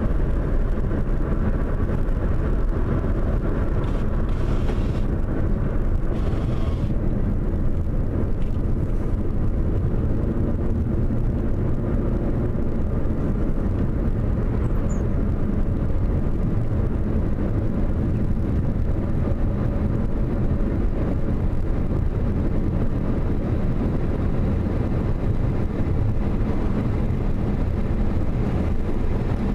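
Steady road noise of a car driving at speed, heard from inside the cabin: a low, even rumble of tyres and engine.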